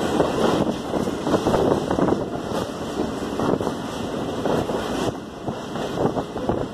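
Passenger train coach running at speed: steady rumble and clatter of wheels on the rails and the carriage rattling, with wind rushing on the microphone at the open window.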